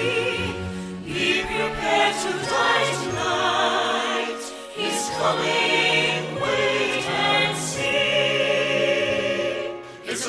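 Music: a choir singing long, wavering notes over instrumental backing, the opening of a Christmas-style horror song. There is a short break about four and a half seconds in.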